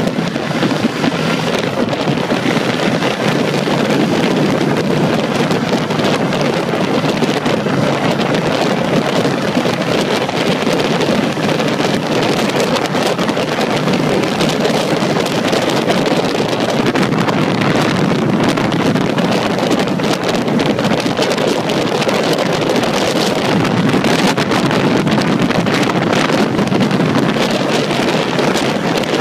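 Steady wind rushing over the microphone of a camera on a 2010 Ducati Multistrada riding at road speed, with the motorcycle's engine and tyre noise under it.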